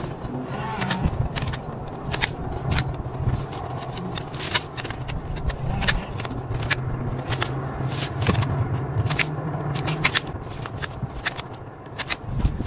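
Dry yard debris rustling and crackling as it is handled, with many irregular sharp snaps.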